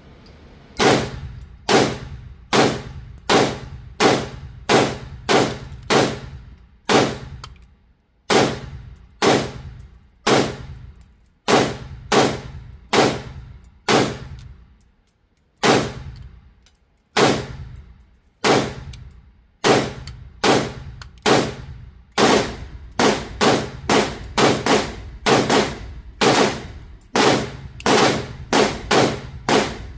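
Gunshots fired one after another, mostly one or two a second with a few short pauses, each shot ringing out briefly.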